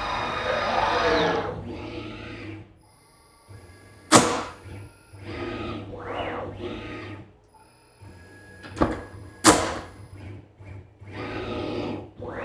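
CNC router's axis motors driving the spindle through an automatic tool change, in bursts of motor whine with rising and falling pitch and short pauses between moves. Three sharp clacks come through, about four seconds in and twice close together near nine seconds.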